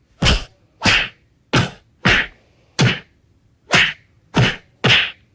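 A sharp slap sound effect, a whack repeated eight times about every two-thirds of a second, standing for one character beating up another.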